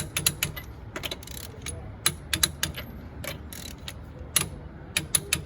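A run of irregular sharp metallic clicks and rattles from small metal objects being handled.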